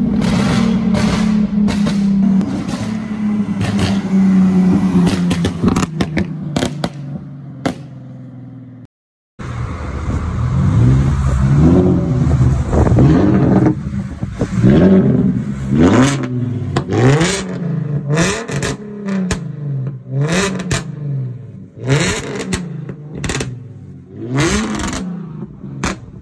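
Nissan 370Z's 3.7-litre V6 with its muffler deleted and a crackle map tuned into the ECU: first a steady engine note with scattered pops from the exhaust. After a short break come about a dozen quick throttle blips, each revving up and falling back, with a burst of crackles and pops on the overrun after each one.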